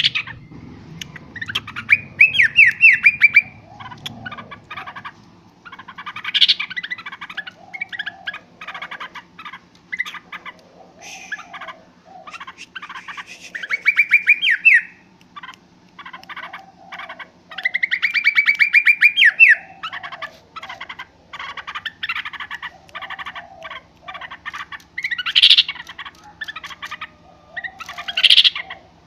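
Yellow-vented bulbul (trucukan) calling noisily: bursts of harsh chattering notes, broken by several longer runs of fast, bubbly rising trills. A faint steady hum runs underneath.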